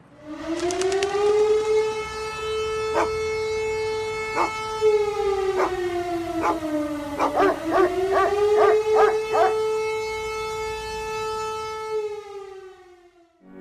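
Air-raid siren wailing: it winds up in pitch, holds, sags and rises again in the middle, then winds down near the end. Several sharp cracks sound over it in the middle.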